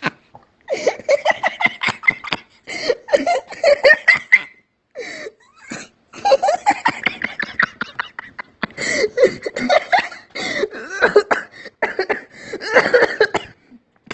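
A man laughing hard in fits of rapid bursts, with a quieter stretch about five seconds in, heard through a phone voice message being played back.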